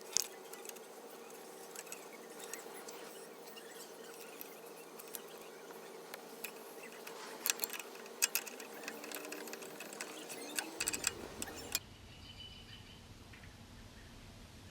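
Scattered clicks and taps of small metal parts and hand tools being handled during lawnmower carburettor work, over a steady hum. The clicking and hum stop abruptly about 11 to 12 seconds in, leaving a faint low rumble.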